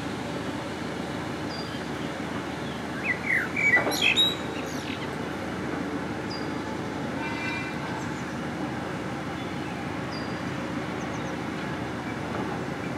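Steady hum of construction machinery at an earthworks site, with birds chirping over it: a short high chirp every two to three seconds, and a louder burst of gliding bird calls about three to four seconds in.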